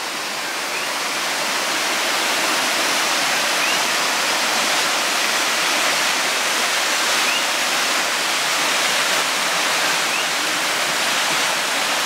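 Steady rush of a waterfall and its cascading rocky stream, growing a little louder over the first couple of seconds and then holding even. A faint, short rising chirp sounds about every three seconds above the water.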